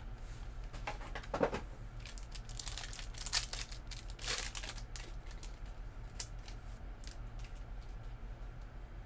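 Trading card pack wrappers crinkling and tearing as packs are opened by hand, in several short bursts during the first half, then lighter clicks and rustles of cards being handled. A steady low hum runs underneath.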